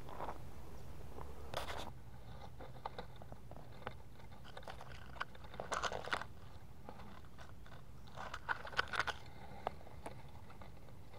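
Irregular crunching and crackling of footsteps on dry leaf litter and twigs, with a few clusters of louder crunches.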